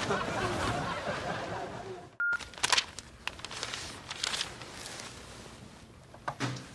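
A short single electronic beep about two seconds in, after a fading stretch of soft noise, followed by a few faint clicks.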